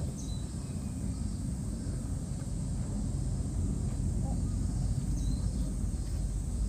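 Outdoor ambience: a steady low rumble with a faint high hiss, and faint distant voices a couple of times.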